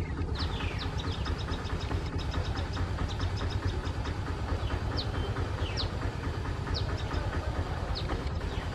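WDM3D diesel locomotive's ALCO 251 engine running with a deep, steady rumble as it pulls a passenger train slowly away, with short high chirps heard over it.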